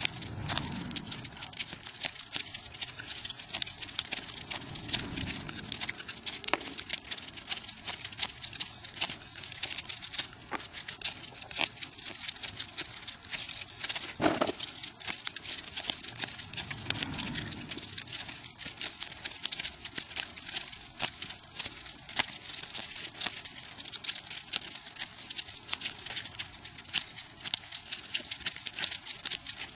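Sped-up rustling and crinkling of folded paper units being handled and pushed into a modular origami swan: a dense, continuous crackle of fine clicks. A few soft low thumps, and one sharper knock about fourteen seconds in.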